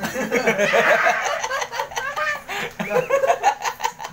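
People laughing heartily, in repeated choppy bursts.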